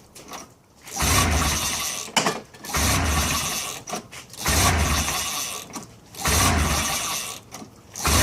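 Ski-Doo's Rotax 503 twin-cylinder two-stroke engine being cranked over again and again, about a second per attempt, four times with a fifth beginning at the end, without catching. The engine will not start, which the owner puts down to carburettors that need cleaning.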